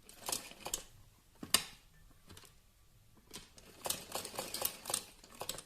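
Sewing machine stitching in short, uneven runs: clusters of quick clicks, with a dense run of clicks near the end.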